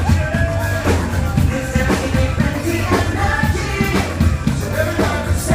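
Live upbeat parade music with a steady drum beat and singing.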